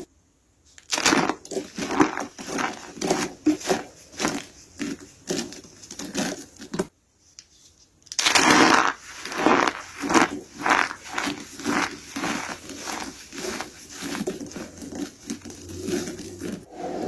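Soap being crushed and crumbled, a fast, uneven run of crunches and crackles, broken by two short silences: one right at the start and one about seven seconds in.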